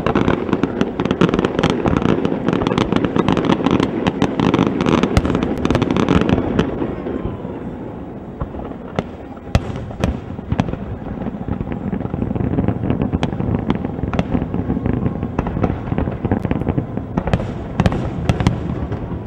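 Aerial firework shells bursting in a dense barrage of booms and sharp pops for about the first six seconds, then thinning to scattered sharp reports.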